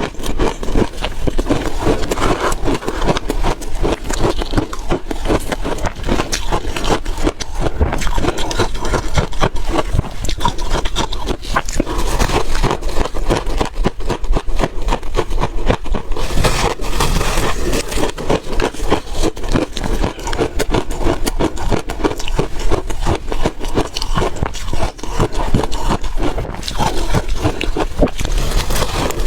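Refrozen ice being bitten and chewed close to the microphone: dense, continuous crunching and cracking.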